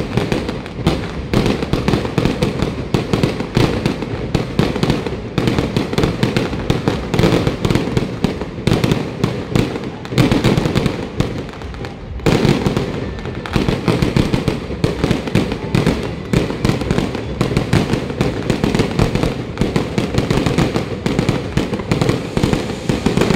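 Fireworks display: a rapid, continuous barrage of bangs and crackles, easing briefly about halfway through before picking up again.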